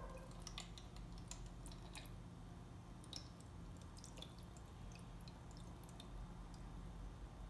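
Faint, irregular drips and small wet squishy clicks of borax-water solution being poured off a lump of hardened glue into a plastic jar.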